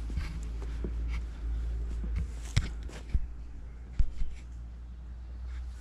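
Footsteps and handling noise from someone walking with a handheld camera: a steady low rumble with a few scattered sharp knocks and clicks.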